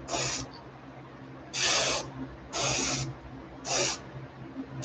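Airbrush spraying in four short hissing bursts of about half a second each, misting a coat of brown paint onto a fishing lure, over a steady low hum.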